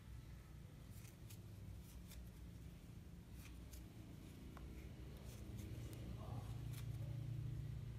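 Faint, irregular little ticks and rustles of a metal crochet hook working yarn, over a steady low hum that grows a little louder near the end.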